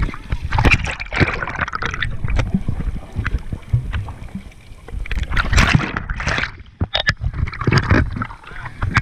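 Sea water splashing and sloshing around a handheld waterproof action camera held at the surface, in irregular bursts, with muffled gurgling when the camera dips under water. Louder splashing bursts come in the middle and near the end as it breaks the surface.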